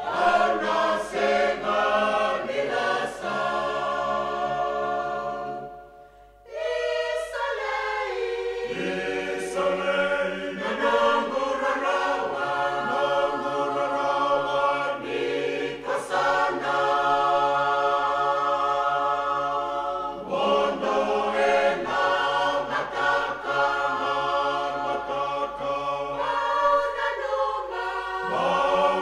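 Choir singing in harmony, unaccompanied, with a short break about six seconds in before the voices come back in.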